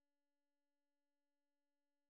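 Near silence, with only an extremely faint steady tone.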